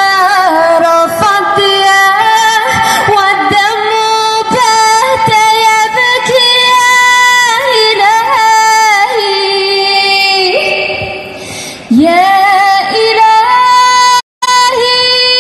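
A woman singing solo in Arabic into a handheld microphone, amplified through a portable street amplifier, with long held notes ornamented with melismatic runs and slides. The audio drops out completely for a moment near the end.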